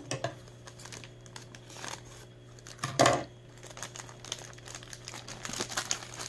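Packaging crinkling and rustling as a boxed kitchen knife is handled, with a single loud knock about three seconds in.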